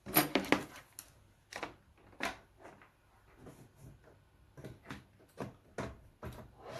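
A string of irregular light clicks and knocks from hands handling a power cord and the metal case of a network switch as the power is hooked up, the loudest near the start and about two seconds in.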